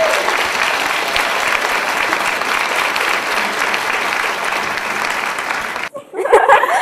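Audience applauding steadily. The clapping cuts off abruptly near the end, and voices begin.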